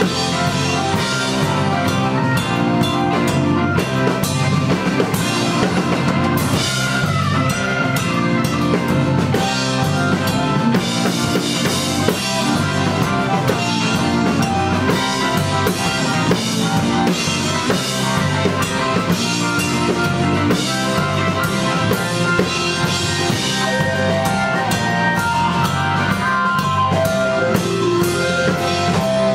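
Live blues-rock band playing: electric guitar, electric bass and a Ludwig drum kit, with a steady run of drum and cymbal hits under the guitar and bass, and no singing.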